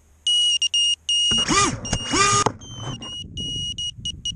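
Crashed FPV quadcopter in snow: its buzzer sounds a run of short, high-pitched beeps that stop and start. Two loud motor spin-ups rise and fall in pitch, flipping the quad off its face, followed by a low rumble under further beeps.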